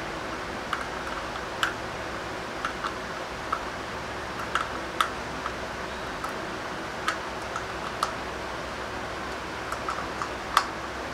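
Scattered light clicks and taps, irregularly spaced, as a small screwdriver and then a pair of scissors work the screw that fixes a knob onto a metal-rimmed glass pot lid. A steady low hum runs underneath.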